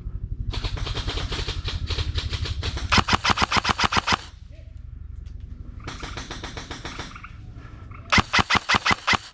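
Airsoft guns firing in rapid full-auto bursts: a long string of shots that grows louder about three seconds in, a fainter burst in the middle, and a loud short burst near the end.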